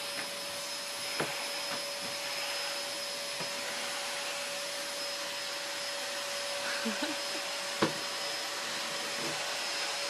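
Vacuum cleaner running steadily, an even rushing noise with a steady whine, with a few light knocks, the clearest near the end.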